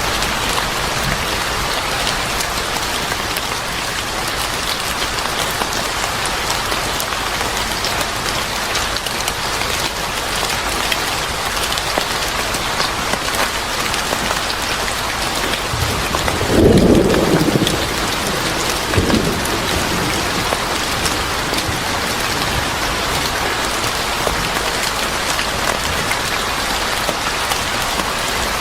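Steady rain falling, with a short low rumble of thunder a little past halfway through and a fainter second rumble soon after.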